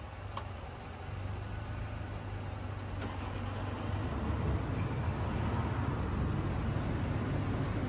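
Low, steady rumble of a motor vehicle, growing gradually louder, with a couple of light sharp clicks.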